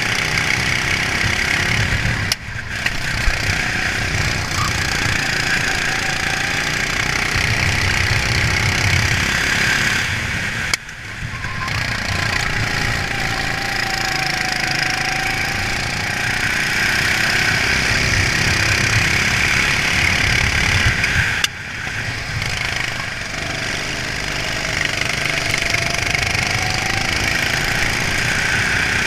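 Racing kart's engine recorded onboard at speed, with wind noise over the camera. The sound drops off abruptly three times, about two, eleven and twenty-one seconds in, and builds back up each time as the kart accelerates again.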